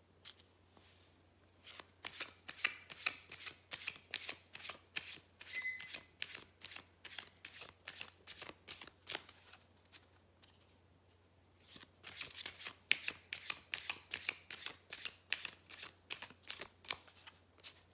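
A deck of cards being hand-shuffled: quick strokes at about three a second, in two runs with a short pause about ten seconds in.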